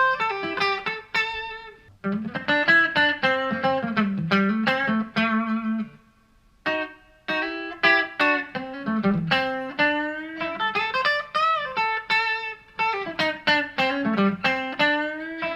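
Fender Modern Player Telecaster electric guitar on its Strat-style single-coil pickup alone, played through a Vox VT20X amp: single-note lead lines with string bends, with a short pause about six seconds in.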